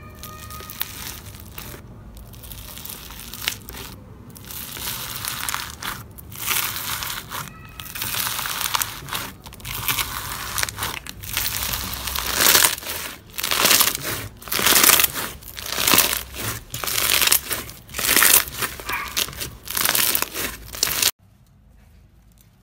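Foam-bead slime (floam) being kneaded and squeezed by hand, the beads crackling and popping in repeated squeezes that get louder through the second half; it cuts off suddenly near the end.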